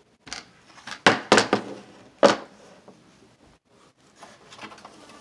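A hard plastic mini pool tabletop is turned over and set down on a wooden table: a handful of sharp knocks and clatters in the first two and a half seconds, then faint handling clicks.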